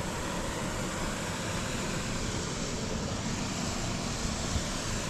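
Steady rushing of flowing water from a nearby waterfall and stream, an even, unbroken hiss.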